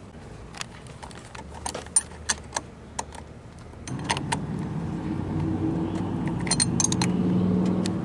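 Light metallic clinks and clicks of a wrench and battery-cable terminal hardware as the cables are bolted back onto the car battery. From about four seconds in, a steady low engine-like hum builds underneath the clicks.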